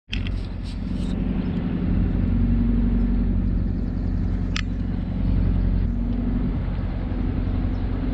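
A narrowboat's diesel engine running steadily while under way, as a low, even drone. One brief, sharp high click sounds about halfway through.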